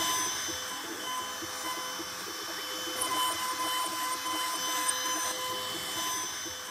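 ShopBot CNC router running steadily, its spindle whining as a V-bit carves a walnut board.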